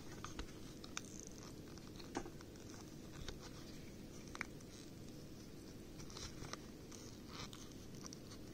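Silicone mold flexing and fingers working a domed resin pendant loose from it: faint rubbing and scratching with scattered small clicks, a few sharper ones in the first half, over a low steady background hum.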